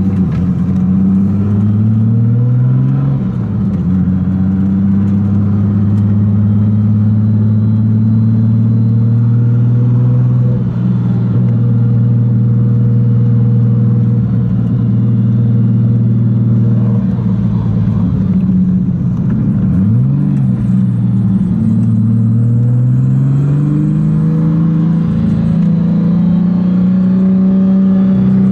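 Turbocharged BMW M5 E34 S38 straight-six heard from inside its cabin, revving up through a gear change in the first few seconds, then holding a steady cruise. Near the end it drops briefly and climbs again before settling.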